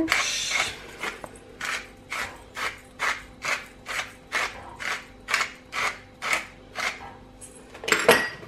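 Hand-twisted pepper mill grinding peppercorns over a salad, a steady run of short grinding crunches at about two and a half a second for some seven seconds. Near the end a brief clatter.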